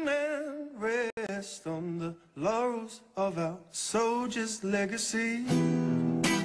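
Background song: a male voice singing a slow, wavering melody, mostly unaccompanied. Acoustic guitar strumming comes back in near the end.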